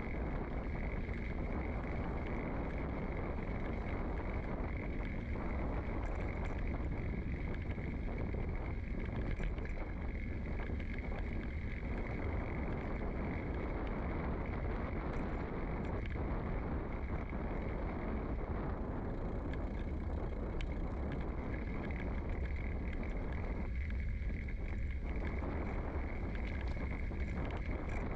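A bicycle rolling along an asphalt street, heard through a microphone mounted on the bike's frame: a steady rumble of tyres and low wind noise, with occasional faint clicks.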